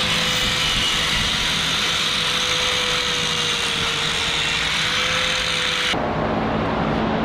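Angle grinder with a wire cup brush running steadily against a steel linkage arm held in a vise, a constant motor whine over harsh wire-on-metal scrubbing. It stops abruptly about six seconds in.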